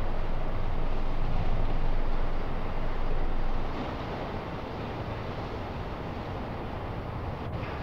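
Steady background noise of a 1984 tape field recording in a zoo elephant house: a low hum under an even hiss, dropping noticeably in level about three and a half seconds in. The Asian elephants' infrasonic calls on the tape lie below human hearing at this original speed.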